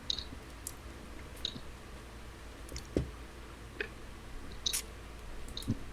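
Faint, irregular clicks of a computer mouse, about one every second, with a single low thump about three seconds in over a steady low hum.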